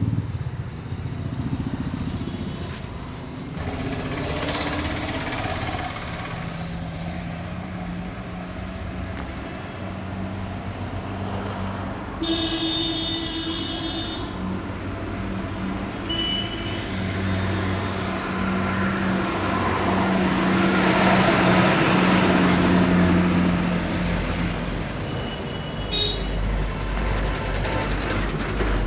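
Street traffic: engines of passing vehicles with a steady low hum, a horn honking for a couple of seconds partway through, and a vehicle passing close later on.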